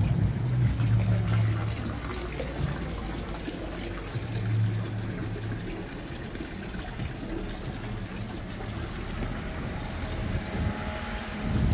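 Water trickling from the spouts of a stone wall fountain into its basin, over low street ambience. It grows fainter after the first few seconds.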